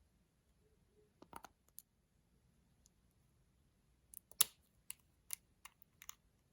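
Sharp clicks and taps: a few about a second and a half in, then a louder, quicker run from about four seconds in, the loudest near the start of that run.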